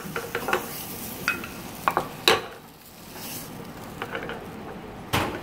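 Tomato paste sizzling in a frying pan as a wooden spatula stirs and scrapes it, with scattered sharp knocks of the spatula against the pan, the loudest about two seconds in and another near the end. The paste is being fried briefly to cook off its sourness and astringency.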